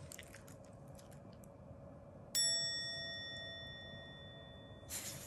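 A single bell-like ding about two seconds in, several ringing tones at once that fade slowly over nearly three seconds.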